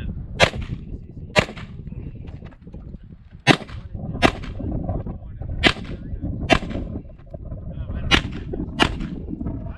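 Pistol shots, eight in all, fired in four pairs about a second apart with a couple of seconds between pairs. These are a competition shooter's two shots per target on an IDPA stage.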